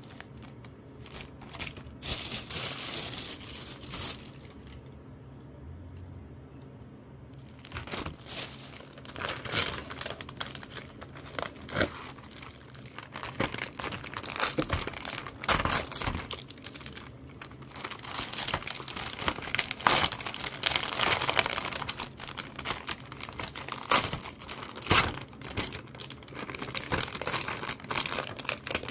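Thin plastic food wrap being peeled and torn by hand off takeout trays, crinkling and crackling irregularly, with a quieter stretch a few seconds in.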